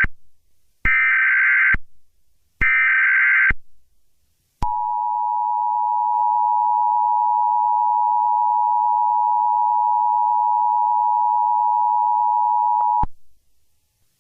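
Emergency Alert System tones. The tail of one SAME header data burst is followed by two more short, shrill warbling bursts about a second apart. Then the steady two-tone EAS attention signal (853 and 960 Hz) sounds for about eight seconds and cuts off, marking the start of a new emergency alert.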